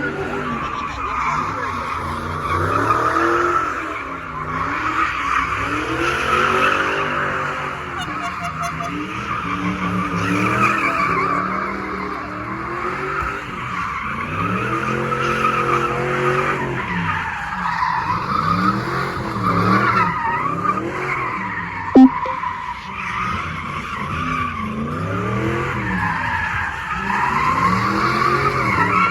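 A car spinning in place: its tyres squeal continuously while the engine revs rise and fall every couple of seconds. A single sharp pop about twenty-two seconds in is the loudest moment.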